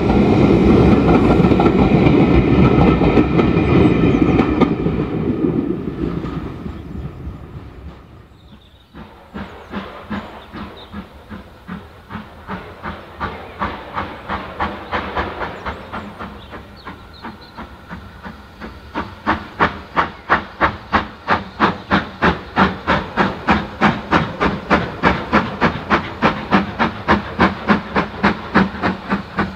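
Coaches of a passing steam-hauled train rumbling over the rails, fading away over several seconds. Then the exhaust beats of a working steam locomotive, about two to three chuffs a second, growing much louder from about two-thirds of the way through.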